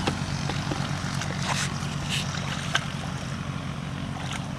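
Hands splashing and squelching in shallow muddy water while groping for fish, in short scattered splashes. Under it runs the steady low drone of a motor.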